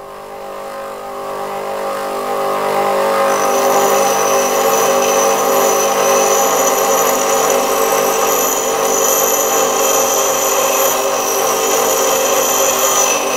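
Bench grinder's stone wheel grinding a metal twist drill bit held by hand, the grinding noise swelling over the first few seconds and then holding steady with a high hiss as sparks fly. This is the grinding of the bit's heel as it is lifted up against the wheel during hand sharpening.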